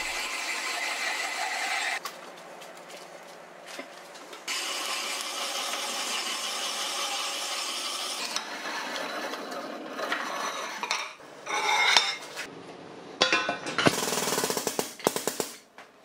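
Twist drill in a milling machine's spindle cutting through a steel plate, a steady grinding cut with a higher squeal now and then. The sound changes abruptly several times as short stretches of drilling follow one another.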